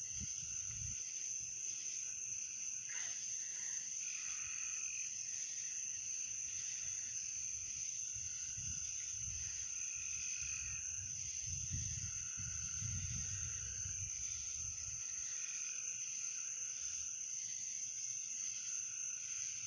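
Nighttime chorus of insects and frogs: a steady high-pitched drone throughout, with shorter repeated calls coming and going beneath it. Wind rumbles on the microphone in gusts through the middle.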